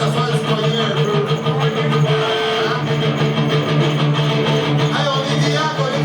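Live punk rock band playing: electric guitar over bass and fast drums.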